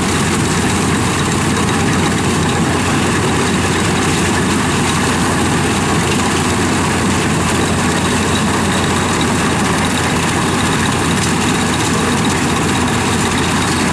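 Yanmar combine harvester running steadily with its diesel engine and cutting and threshing gear working in the rice.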